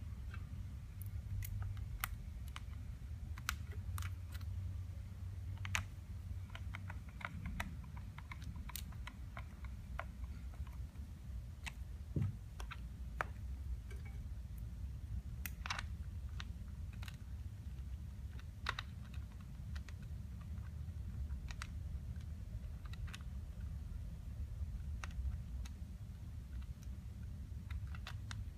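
Irregular small clicks and taps of a screwdriver and battery terminal hardware being handled and fastened, over a steady low hum.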